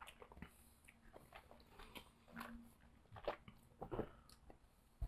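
Faint mouth sounds of whisky being sipped and tasted, with scattered small clicks and knocks, the loudest about three and four seconds in.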